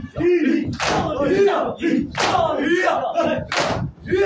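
A group of men performing matam, striking their chests with open hands in unison, three loud slaps about a second and a half apart, with the crowd shouting between the strikes.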